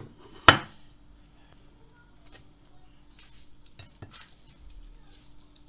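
A ceramic plate knocks once sharply against the table about half a second in, followed by faint crackles and small ticks as the crisp fried crust of a chebureki is torn open by hand.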